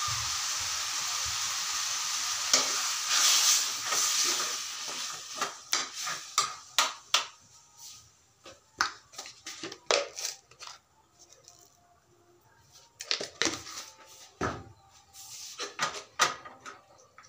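A steady hiss for the first few seconds, then scattered clinks and knocks of hard objects being handled.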